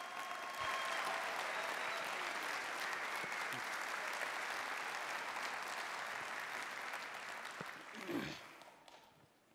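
Large audience applauding steadily for the speaker's entrance, dying away near the end.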